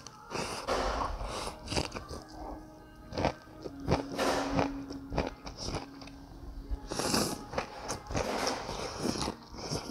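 A person slurping rice noodles from a bowl of broth, several slurps in a row with chewing between them.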